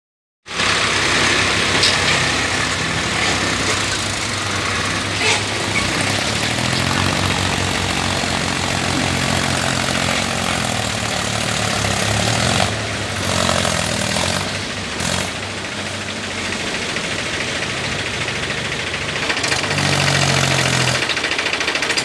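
Mahindra tractor's diesel engine running under load as it pulls a loaded trailer over a muddy, rutted track, the engine note rising and falling.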